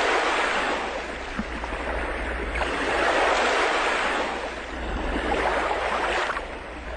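Steady rushing noise that swells and eases slowly, with a low hum underneath; no music or singing.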